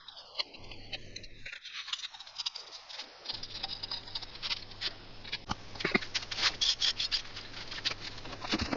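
Scissors snipping and scraping through thin aluminium drink-can sheet, a run of short sharp cuts that come thicker about halfway through.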